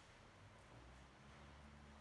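Near silence, with a faint low hum.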